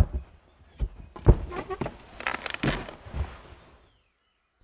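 Foley footsteps and thuds: several uneven thumps over the first four seconds, stopping about four seconds in.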